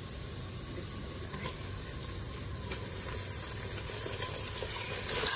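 Sliced onions and minced beef frying in hot oil in an aluminium pressure cooker: a steady sizzle that slowly grows, with a sharper, louder hiss breaking in near the end.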